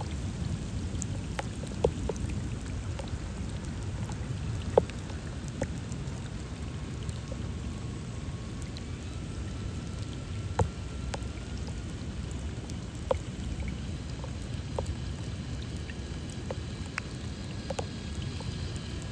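Steady rain falling on a flooded street gutter and wet pavement, with scattered individual drops splashing sharply close by.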